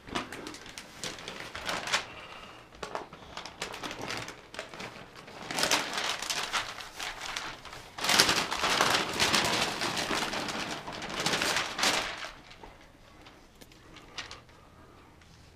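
A large sheet of paper rustling and crinkling as it is lifted and rolled over a slab of ground meat, with louder stretches about five to seven seconds in and again from eight to twelve seconds, then quieter near the end.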